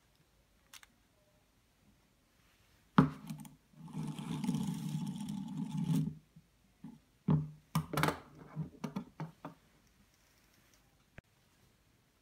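Plastic Lego Technic launcher and spinning-top parts handled on a wooden table: a sharp knock, then about two seconds of steady rattling whir that cuts off suddenly, followed by a run of separate clicks and knocks.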